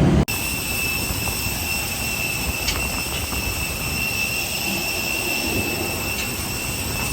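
Jet airliner's engines heard from inside the cabin: a steady rushing hum with a high, steady whine.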